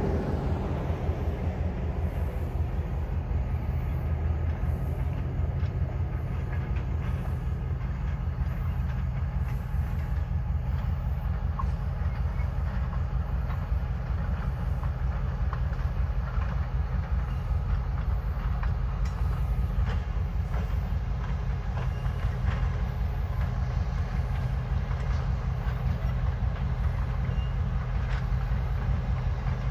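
Diesel locomotive pulling passenger cars along the track, its engine running steadily with the wheels clicking on the rails.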